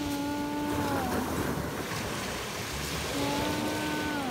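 Surf washing on a pebble shore, with wind buffeting the microphone. Two long held tones, each about a second and a half, sound over it, one at the start and one near the end, each dropping in pitch as it ends.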